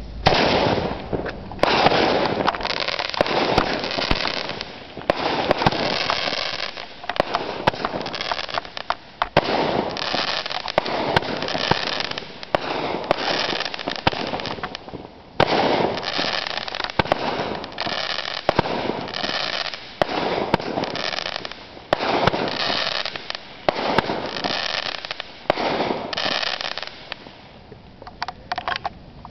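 Fireworks launched from the ground, firing a long run of aerial shots about every one to two seconds. Each shot is a loud blast with sharp pops and crackling, and the barrage stops near the end.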